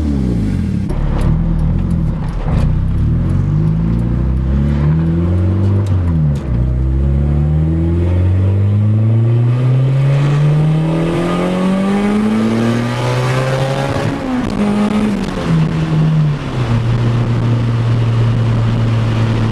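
Turbocharged Integra GSR four-cylinder engine running through a cheap aftermarket eBay exhaust. Its pitch climbs and falls several times as it accelerates, with one long climb in the middle that drops away. It then holds a steady pitch near the end.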